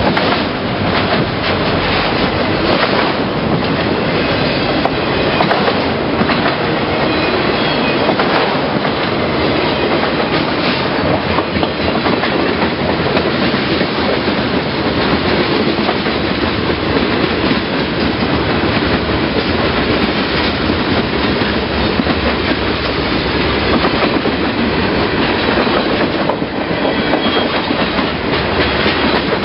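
A freight train's cars rolling past close by, steel wheels clattering steadily over the rail joints, with brief faint wheel squeals now and then.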